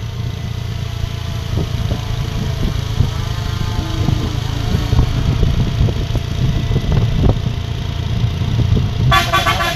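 Bus engine running steadily, with a short burst of a multi-note telolet horn near the end.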